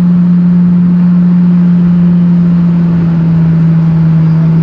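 An engine running steadily, a loud constant hum with no revving or breaks.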